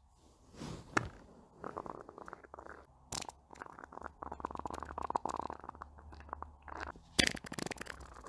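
A run of farts: rattly, fluttering passes of different lengths, the longest lasting about three seconds in the middle, with a few sharp pops between them.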